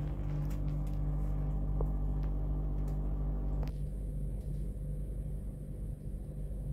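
A low, steady rumbling hum with a faint regular pulse, and a few faint clicks in the first half. About three and a half seconds in, the background changes abruptly and a steady high hiss comes in.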